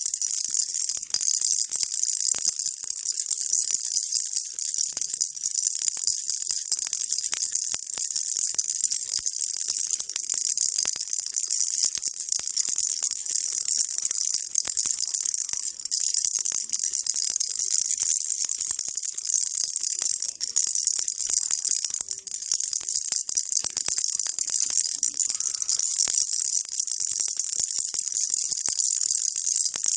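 Baby rattle shaken steadily, a dense, unbroken stream of small bright clicks and jingles kept going as a white-noise sound.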